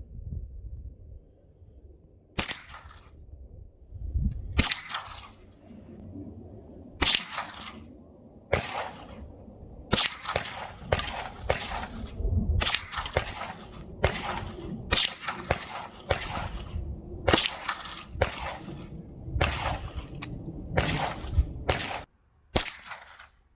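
Rifle shots: a string of about twenty sharp reports, each with a short echoing tail, fired at irregular intervals of roughly a second. A low rumble runs underneath, and everything cuts off suddenly near the end.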